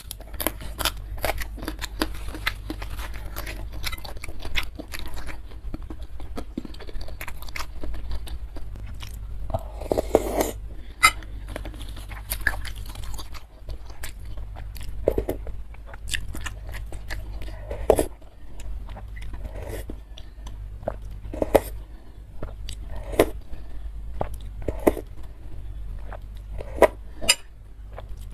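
Close-miked eating: crisp crackers crunching and being chewed, with many sharp, irregular crunches. A louder, longer sound comes about ten seconds in, and there are occasional clinks of a metal spoon against the bowl as soup is spooned up.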